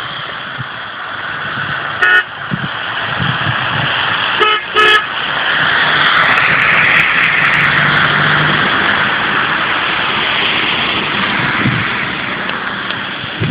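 Heavy trucks passing close on a wet, slushy road, their tyre and engine noise swelling to a peak about six to eight seconds in. A vehicle horn toots once about two seconds in and twice in quick succession around four and a half seconds.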